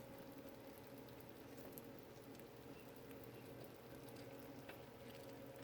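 Near silence: faint room tone with a low steady hum and scattered faint ticks.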